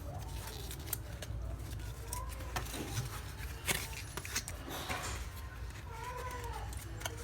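Scattered sharp clicks and light rustles of small objects being handled, with one louder click a little past halfway, over a steady low hum.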